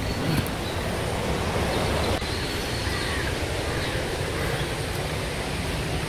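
Steady rush of a forest mountain stream, an even, unbroken hiss.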